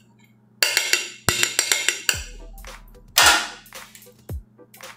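Background music with a percussive beat: sharp clicking drum hits in quick runs and deep booming bass thuds that drop in pitch.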